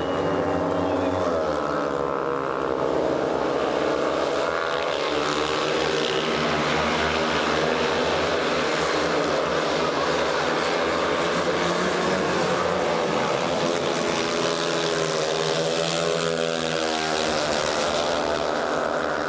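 Four speedway motorcycles, their 500 cc single-cylinder methanol engines revving hard as they leave the start and race together around the dirt oval, the pitch rising and falling through the bends.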